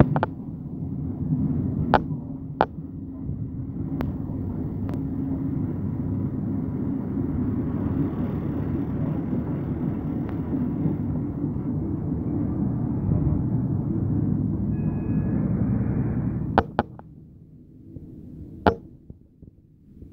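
Train running, heard from inside a carriage: a steady low rumble with occasional sharp clicks. About three-quarters of the way through the rumble drops off sharply to a much quieter hum, with a couple more clicks.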